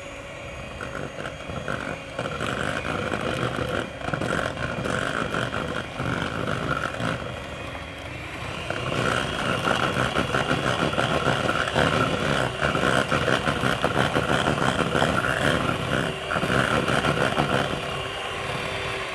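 Electric hand mixer running steadily, its wire beaters whisking instant vla (custard powder) and cold water and rattling in a stainless steel bowl. The motor's whine rises a little about eight seconds in.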